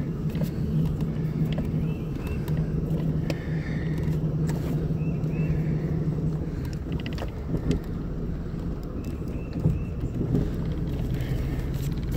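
The 1989 Hurricane deck boat's engine idling steadily with an even low hum.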